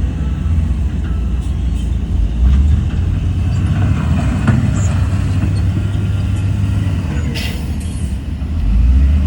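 Heavy diesel earthmoving machinery (bulldozer and dump trucks) running steadily with a deep engine rumble. A short hiss about seven seconds in lasts around a second.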